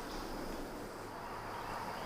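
Quiet woodland background: a steady faint hiss with no distinct sounds.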